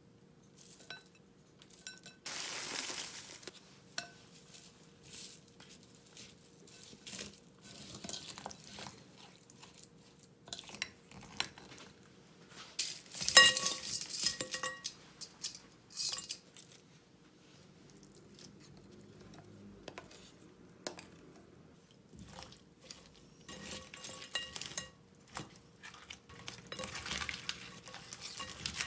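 Kitchen food-prep sounds at a glass mixing bowl: chopped vegetables tipped in with a short swish a couple of seconds in, then cut raw swimming-crab pieces clattering into the glass bowl from a stainless steel strainer, with a brief ring, about 13 seconds in. Near the end a wooden spoon and chopsticks stir and scrape the crab through the thick chilli sauce, clicking against the bowl.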